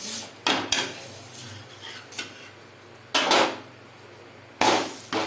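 Metal utensil clattering and scraping on a griddle (tava) as a jowar bhakri is flipped over: a few light knocks, then two louder scrapes about three and four and a half seconds in.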